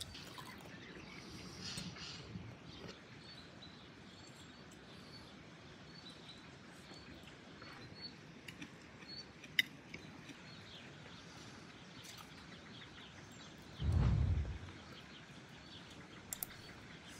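Songbirds chirping faintly over a quiet outdoor background, with a few sharp clicks and one brief low thump about fourteen seconds in.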